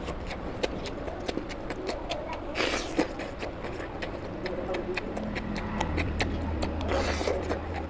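Close-miked eating sounds: many small wet, sticky clicks and squelches as a bare hand kneads rice into oily mutton fat curry and the food is chewed. Two short hissing rushes come about two and a half and seven seconds in, over a low steady hum.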